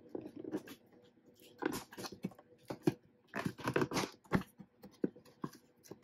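Cardboard box being opened by hand: irregular scraping, rustling and short tearing sounds as the tape seals are cut and the cardboard is worked loose.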